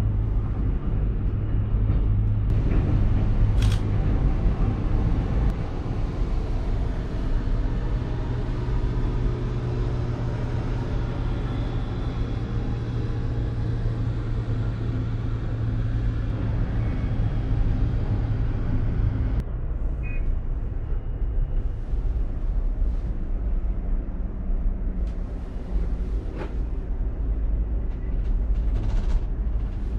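Cable car gondola travelling along its cable: a steady low rumble with a hum. It turns duller about two-thirds of the way through, and a few faint clicks sound along the way.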